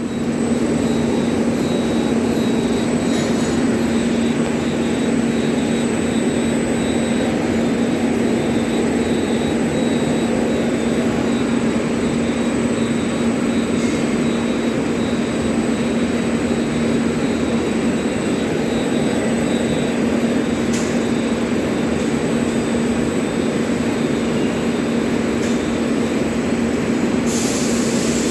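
Mechanical face seal on a running machine giving off a humming noise: one steady low hum over a rough mechanical rush, with a few faint clicks.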